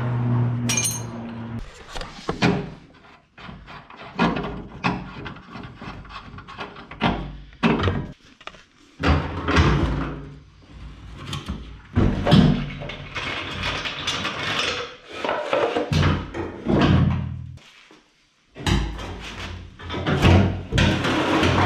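Irregular knocks and clunks of hand tools and metal parts being handled, over background music.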